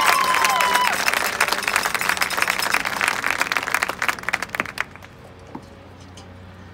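A marching band's last held brass chord cuts off about a second in, under applause and cheering from a stadium crowd. The clapping thins out and dies away about five seconds in.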